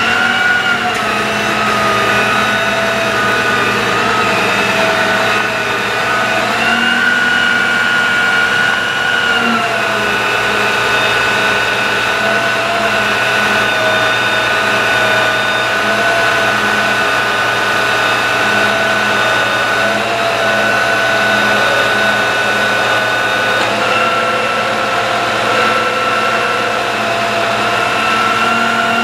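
Engine and PTO-driven hydraulic system of a Dodge 5500 bucket truck running while its ETI aerial boom is worked, giving a steady mechanical whine. The pitch shifts up and down a few times as boom functions are engaged and released.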